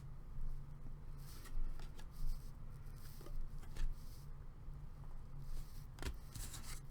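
Trading cards being handled and flipped through, with soft scattered rustles and small clicks over a low steady hum.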